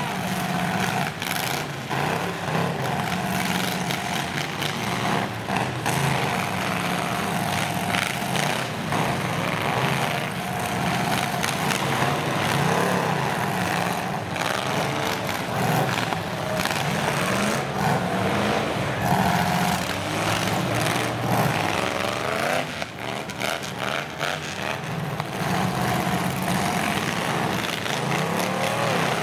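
Engines of several battered full-size pickup trucks, overlapping, revving up and down as they maneuver and hit each other in a demolition derby.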